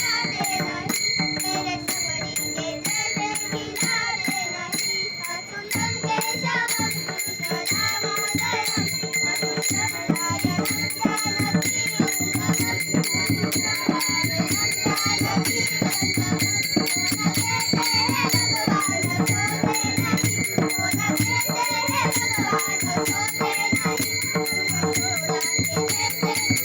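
Music of a Marathi bhavgeet: a wavering sung melody over quick, steady jingling percussion. A fuller, lower accompaniment joins about six seconds in.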